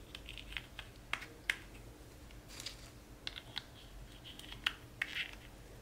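Scattered light clicks and short soft rustles of small plastic parts being handled: the lens guards of an Insta360 X4 camera being taken off and put away.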